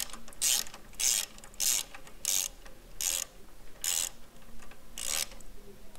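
Socket ratchet clicking in about eight short runs, roughly half a second apart, stopping near the end, as a 22 mm socket tightens a transmission drain plug.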